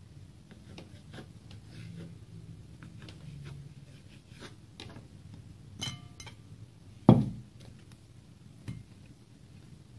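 Knife tapping and scraping on a wooden cutting board as soft dough is cut into portions, with small handling knocks. A short ringing clink, then a loud dull thump about seven seconds in as a large bowl is set on the table and dough goes into it.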